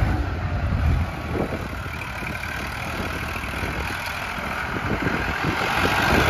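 A New Holland 3037 NX tractor's 39 hp diesel engine running under load while pulling a disc harrow through sandy soil. The engine drops in level about a second in and grows louder again near the end.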